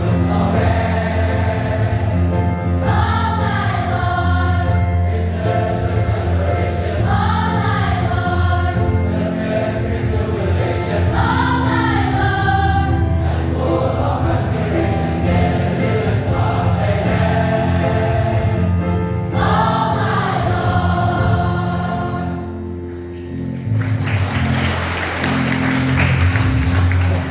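School choir singing with a low instrumental accompaniment; the song ends about 23 seconds in and applause follows.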